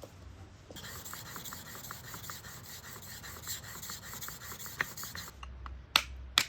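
Metal blade being rubbed back and forth on a sharpening stone, a steady scraping hiss with quick regular strokes that stops about five seconds in, followed by a few sharp clicks near the end.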